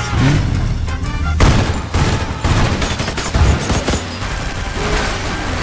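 Rapid gunfire, many shots in quick succession starting about a second in, with bullets striking a car's metal body, over music.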